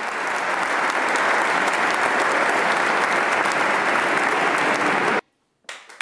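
Audience applauding, a dense steady wash of many hands clapping that cuts off abruptly about five seconds in. After a brief silence another round of applause starts near the end, with separate claps easier to hear.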